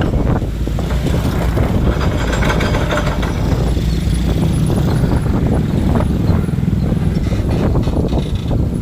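Hydraulic excavator's diesel engine running steadily under working load, a low continuous rumble, with a hissing surge about two seconds in.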